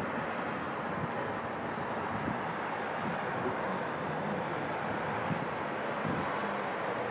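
Distant fireworks heard as irregular low, muffled thuds over a steady background rumble.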